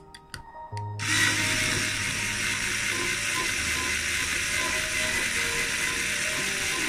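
A small 4.8 V cordless drill starts about a second in and runs steadily as its bit grinds out the rivet post in the metal base of a die-cast toy car.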